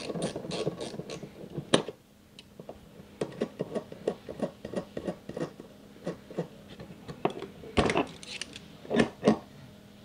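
Ratcheting box-end wrench clicking in quick runs as it loosens the coupling nut of an RV slide-out's interior top cable, with a few louder clicks near the end.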